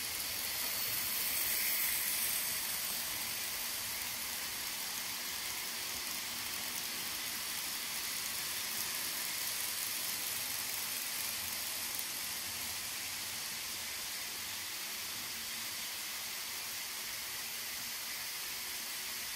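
N-scale model trains running on the layout's track, a steady high hiss of wheels and small motors that swells briefly about two seconds in.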